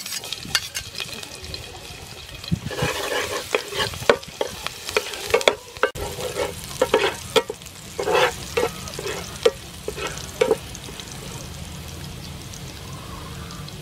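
Chopped garlic sizzling in hot soybean oil in a nonstick frying pan, with a metal blade scraping and knocking against the pan as the garlic is spread and stirred. The scraping stops about ten seconds in, leaving a steady sizzle.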